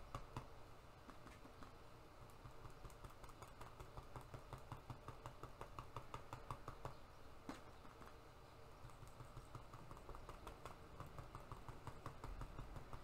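Faint, repeated light taps of a cotton swab dabbing paint onto sketchbook paper, over a low steady room hum.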